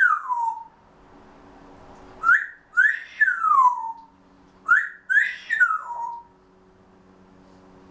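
Grey parrot whistling a repeated phrase: a short rising note, then a longer whistle gliding down. The falling tail of one phrase is heard at the start, then the full phrase comes twice, about two and a half seconds apart.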